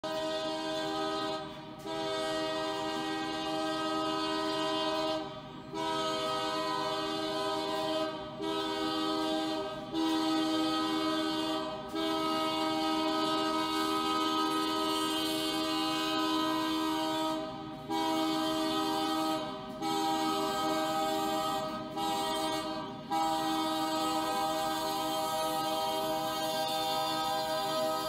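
Diesel locomotive's air horn blaring almost constantly, a chord of several notes held in long blasts with brief breaks every few seconds.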